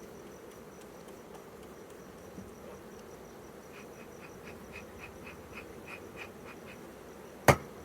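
Honeybees buzzing steadily around a hive, with a run of short chirps at about four a second in the middle and a single sharp knock near the end.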